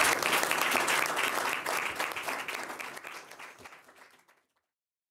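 Audience applauding, fading out and gone about four seconds in.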